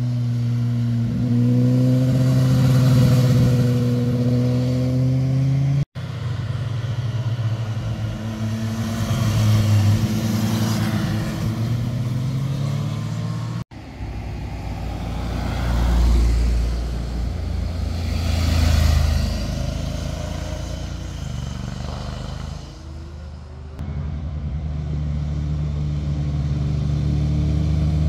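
Motorcycles passing on a winding road, engines revving and changing pitch through the bends, first a sport bike. The sound is three separate pass-bys, each cut off abruptly at about six and fourteen seconds, with a deeper, lower engine sound in the last part.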